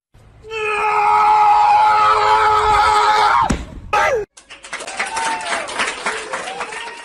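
A vehicle horn sounds with a loud, steady tone for about three seconds, then drops away in pitch as it stops. A short falling cry and a stretch of wavering, rising-and-falling cries follow.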